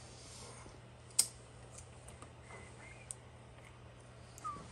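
One sharp click about a second in and a few faint ticks from handling the Bolens weed wacker engine during a start attempt; the engine does not fire or run.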